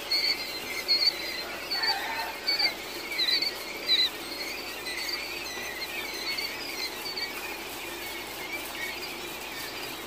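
A brood of week-old quail chicks peeping: many short, high chirps overlap, with a few louder ones in the first half.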